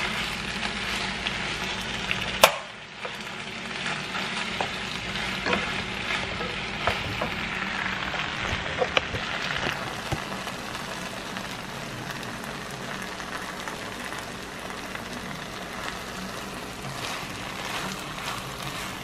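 Ground beef, sausage, rice and stewed tomato mixture sizzling in a nonstick pan while a wooden spoon stirs it, with many small scraping clicks. A single sharp click about two and a half seconds in.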